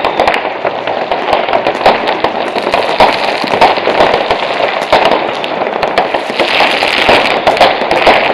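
Many fireworks and firecrackers going off at once: continuous crackling and popping with frequent sharp bangs and no pause.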